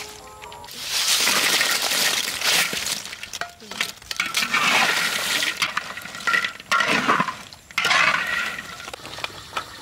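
Crisp fried potato rolls pinned with toothpicks being stirred and tossed in a metal wok with a metal spatula. The sound is a dry, crunchy rattle with clinking of metal on metal, coming in several bursts with short pauses between them.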